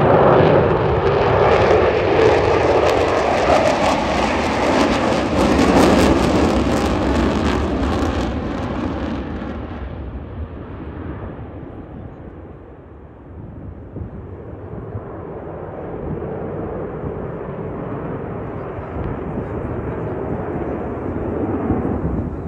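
Airplane flying past: loud, rough engine noise with a crackle for the first several seconds, fading away by about halfway, then a fainter aircraft sound building again toward the end.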